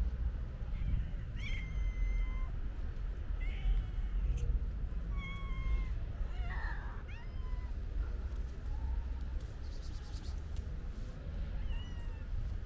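Stray cats meowing: about six short meows spread through, over a steady low rumble.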